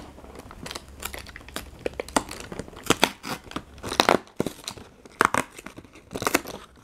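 Cardboard advent calendar door being torn and pried open by hand, with irregular crackles and crinkles of card and paper.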